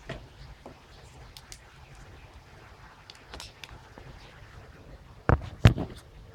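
Handling noises from a funnel and rubber hose being brought to the transmission: small scattered clicks and rustles, then two sharp knocks close together about five and a half seconds in.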